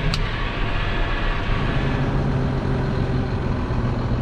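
Tractor engine running steadily under load while ploughing, with one sharp click just after the start.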